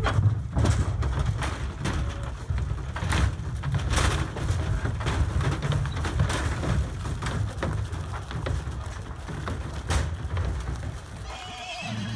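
Caspian mares' hooves knocking and thumping on the floor of a stock trailer as the horses unload, over a steady low rumble. A horse whinnies near the end.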